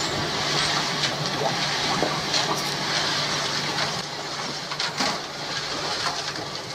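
Steady rush of water circulating in a koi pond, over a low steady hum, with a few brief clicks.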